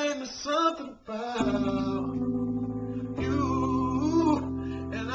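A man singing his own song. About a second and a half in, held accompaniment chords come in under his voice, and the chord changes again about three seconds in while he keeps singing.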